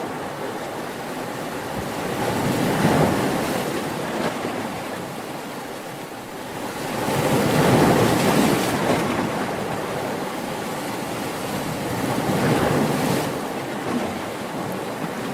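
Ocean waves breaking and washing on the shore in a steady wash of surf, swelling to a louder break about three seconds in, again near the middle, and once more near the end.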